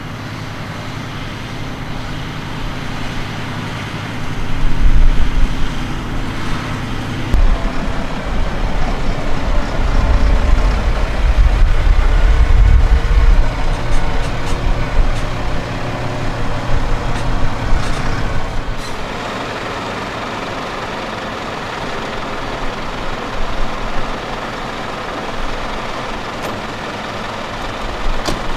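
Fendt 936 Vario tractor pulling a Samson slurry tanker with a spreading boom, its engine running steadily. The low engine rumble swells loudly from about four seconds in as it comes close, then drops back after about eighteen seconds as it moves away.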